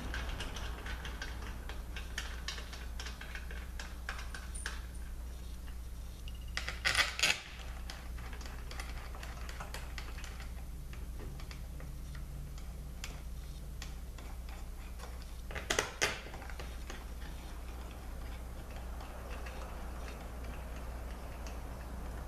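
Small metal parts clicking and clinking against an aluminium transmission valve body as they are handled and fitted, with two louder clatters about seven and sixteen seconds in. A steady low hum runs underneath.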